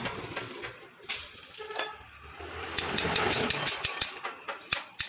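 Metal engine parts clinking and scraping together as a Bajaj Platina 100cc crankshaft is handled over the open crankcase, with a quick run of sharp metallic clicks about three seconds in.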